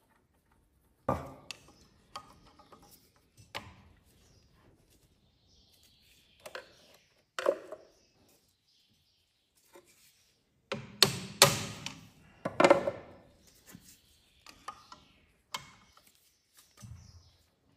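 Irregular sharp metal knocks and clinks, some leaving a short ring, from a turbocharger and its bolts being handled and set onto an exhaust manifold to be bolted on temporarily. The knocks come in a quick cluster just past the middle.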